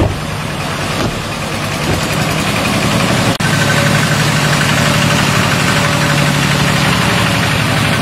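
Single-cylinder diesel engine of a walk-behind two-wheel tractor running steadily as it pulls a trailer through floodwater, with water splashing from its wheels.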